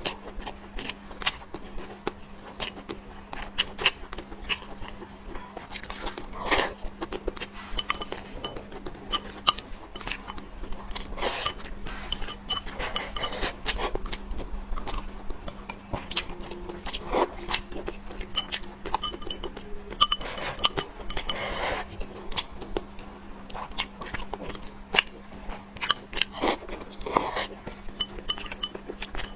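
Close-miked eating sounds: utensils clicking and clinking against a bowl or plate many times at irregular intervals, with chewing between, over a faint steady hum.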